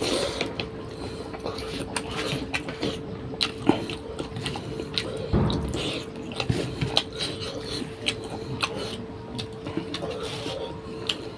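A person chewing and smacking food close to the microphone, with many small wet clicks and a louder mouthful about halfway through. A faint steady hum runs underneath.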